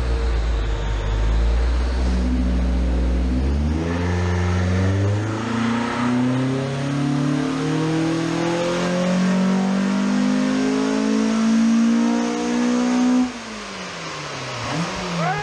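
Ford Focus ST170's 2.0-litre four-cylinder engine, fitted with individual throttle bodies and a custom exhaust, making a full-throttle pull on a rolling-road dyno. It runs steady and low for about four seconds, then the revs climb steadily for about nine seconds. Near the end the throttle is suddenly shut and the revs fall away.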